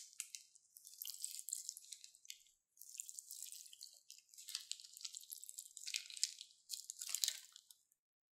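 Clear slime being squeezed out of a cut plastic bag onto foam beads, making wet crackling and dripping sounds in several spurts with short pauses.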